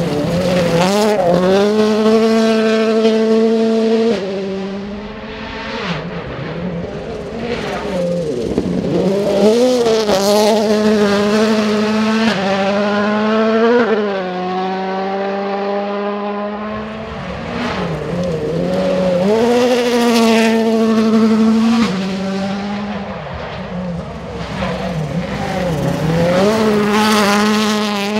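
Ford Fiesta WRC rally car's turbocharged 1.6-litre four-cylinder engine driven hard on a test stage. The pitch climbs, drops back and climbs again several times as the car changes gear and lifts off for corners.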